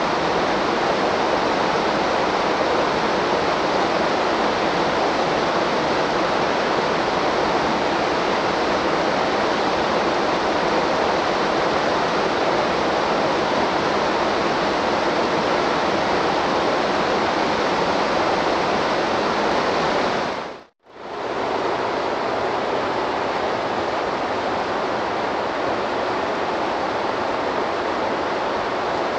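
A waterfall rushing steadily, an even roar of falling water. About two-thirds of the way through it dips briefly to near silence and fades straight back in.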